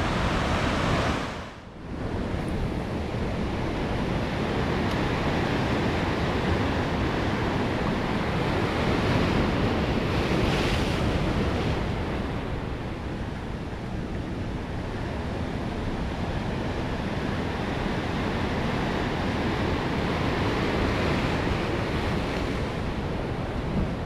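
Rough seawater surging and washing against the rock wall, a steady rushing noise, with wind buffeting the microphone. The sound dips briefly about a second and a half in.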